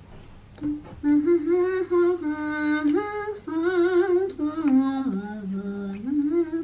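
A woman singing a wordless melody, holding notes with vibrato and sliding between them, with the tune dipping lower about five seconds in. The voice has the close sound of a small room.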